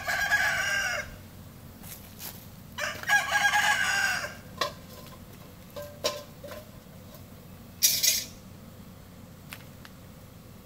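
A rooster crows twice, each crow about a second long, the second about three seconds in. After them come a few sharp knocks and a short clatter about eight seconds in, as loud as the crows.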